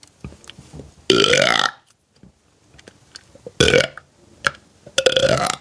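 A woman burping on request for a "cute burp": a short burp about a second in that rises in pitch, then another in the middle and a last rising one near the end.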